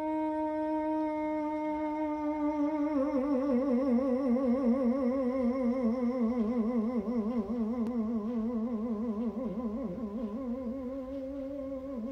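A brindle boxer howling in one long, unbroken howl. It holds a steady pitch at first, wavers up and down through the middle, and settles again near the end.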